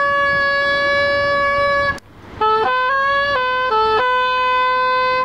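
Straight soprano saxophone played solo: a long held note, a brief breath about two seconds in, then a quick run of shorter notes settling onto a slightly lower held note that breaks off near the end.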